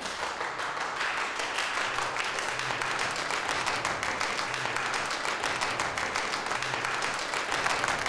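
A group of people applauding: steady, dense clapping.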